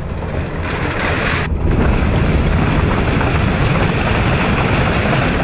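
Corrugated steel hangar door being rolled open by hand: a loud, steady metallic rolling rattle with a deep rumble underneath.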